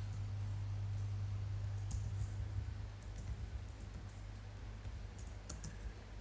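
Computer keyboard keys clicking in a few scattered keystrokes as code is typed, over a steady low hum.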